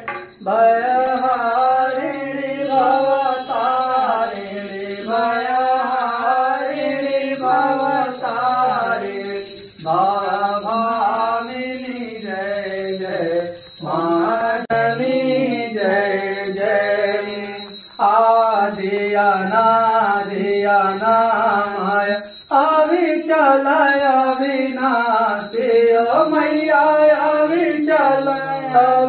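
A man singing a Hindu aarti, a devotional hymn to the goddess, as a chant in long melodic phrases with short breaths between them.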